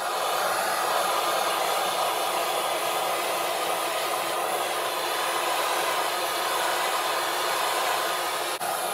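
Handheld gas torch burning steadily with a continuous hiss, its flame scorching a wooden axe handle to darken it.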